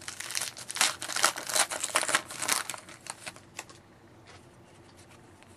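Plastic or foil trading-card packaging crinkling as it is handled by hand, a rapid crackling for about three and a half seconds that then stops.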